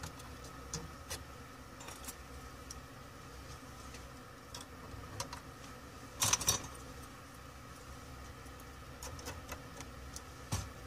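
Scattered small metallic clicks and clinks from the clamps and rails of a rework station frame being adjusted around a laptop motherboard, over a steady faint hum. A louder short clatter comes a little after six seconds in, and another sharp click near the end.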